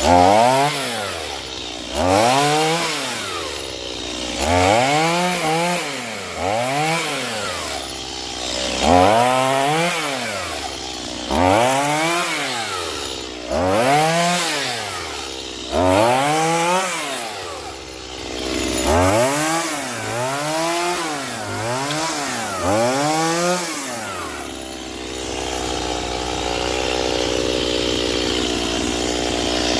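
Stihl MS 210 two-stroke chainsaw revved up and down over and over, its engine speed rising and falling about once every two seconds. About 25 seconds in it drops back to a steady idle.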